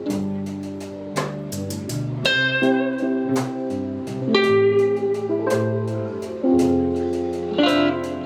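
Band playing an instrumental passage: plucked guitar notes over a moving bass line, with drum hits scattered through.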